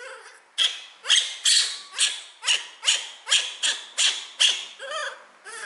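Baby monkey crying in a rapid series of harsh, noisy calls, about two and a half a second, with a couple of wavering squeaks near the end.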